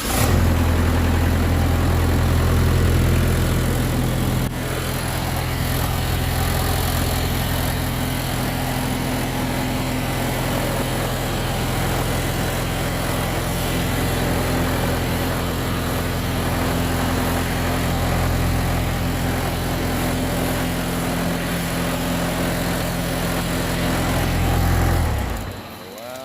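Reconditioned Mitsubishi 6D16 six-cylinder diesel engine on a test run, running steadily, then shut down near the end, its note dropping away as it stops.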